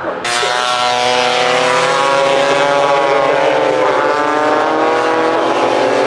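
Several racing scooters' engines running hard together at high revs, their notes overlapping and gliding up and down in pitch as they accelerate and change gear. The sound cuts in abruptly just after the start.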